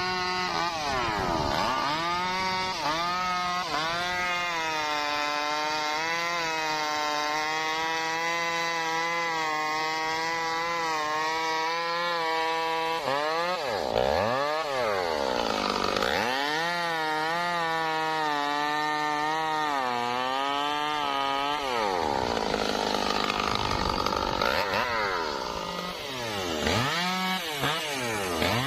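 Stihl MS 382 two-stroke chainsaw running at full throttle through trembesi wood, its pitch wavering under load. Several times the revs drop sharply and climb again as the throttle is let off and reopened.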